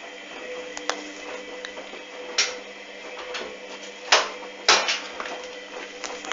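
Hoover front-loading washing machine turning its drum in the wash, with a steady motor hum. Three short, louder swishes come from the wet, sudsy laundry falling in the drum, about two and a half, four and nearly five seconds in.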